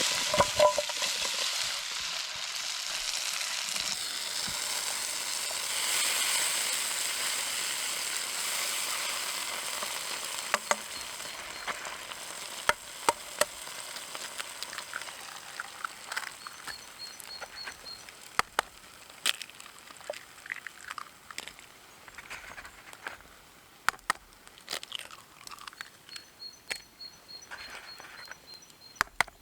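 Food frying in a hot pan over a campfire: a loud sizzle that starts suddenly and slowly dies down, with sharp pops and crackles coming more often toward the end.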